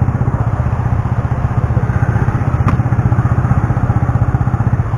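Motorcycle engine running steadily with a fast, even pulse.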